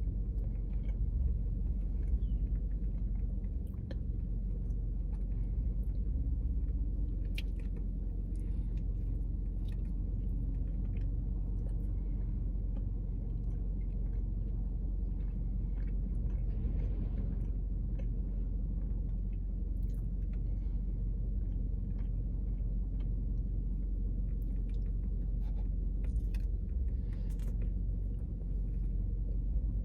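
A person chewing and biting into a donut, with scattered soft mouth clicks and smacks over a steady low rumble.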